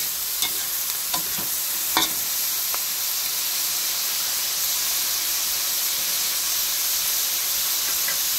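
Onion flower stalks and sliced pork sizzling in a wok, with a metal spatula scraping and knocking against the pan four times in the first three seconds, then a steady sizzle.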